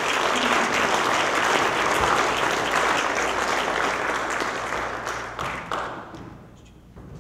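Audience applauding right after a speaker is introduced: steady clapping that thins out and stops about six seconds in.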